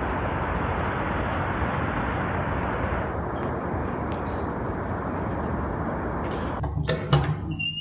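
Steady outdoor rushing noise that thins out about three seconds in. Near the end come a few sharp knocks over a low hum.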